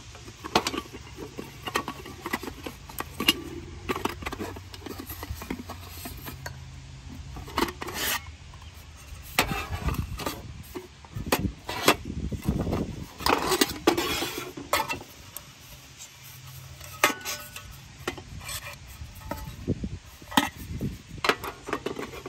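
Titanium camp pots being unpacked from a mesh stuff sack and set down on a plastic camp table: fabric rustling and sliding, with many light clinks and knocks of metal against metal and against the tabletop.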